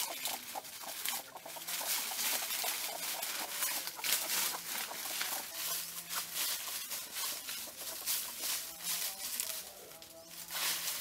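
Chickens scratching and pecking through a layer of dry teak leaves for scattered grain: a dense crackling rustle of crisp leaves, with a few soft clucks in the second half.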